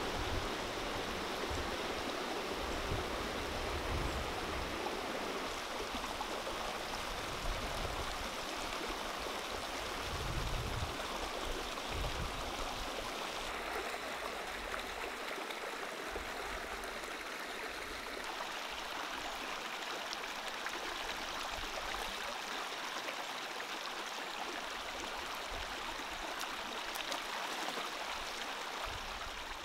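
Shallow rocky stream running over stones: a steady rush of water, with some low rumbles in the first half.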